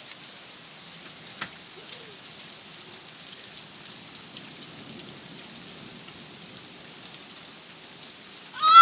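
Steady rain falling in an even hiss, with a child's high-pitched shriek starting right at the end.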